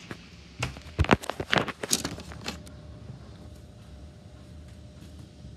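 A quick series of knocks and bumps of a phone being handled, over about the first two and a half seconds, then quiet room tone with a faint steady hum.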